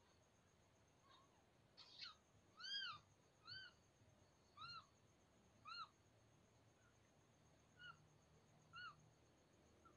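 Newborn kitten mewing: about six short, high-pitched mews, each rising and falling in pitch, spaced roughly a second apart.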